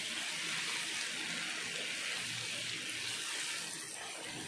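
Steady sizzling hiss of black chickpeas, onion and grated coconut frying in a pan while they are stirred with a wooden spatula, easing off a little near the end.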